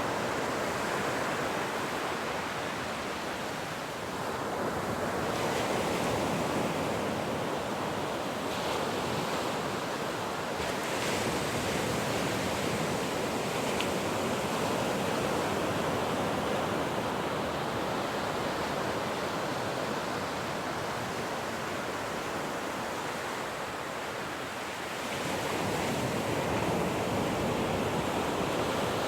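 Ocean surf: a steady wash of breaking waves that swells and eases, with lulls about 4 seconds in and again near 24 seconds before the next waves build.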